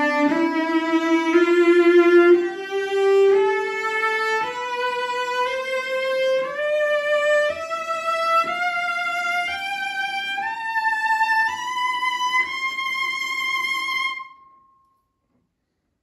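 Circa-1910 Jérôme Thibouville-Lamy (JTL) Mirecourt cello, bowed in a slow rising scale of about one note a second that climbs some two octaves into the high register. The last note dies away about 14 seconds in. The cello has had a slight bridge adjustment and a week of play-in on a Tonerite vibration device.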